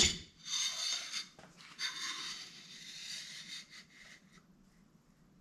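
Outboard water pump housing with its new rubber impeller being slid down the driveshaft and twisted onto the drive key: a sharp click at the start, then two stretches of rubbing and scraping.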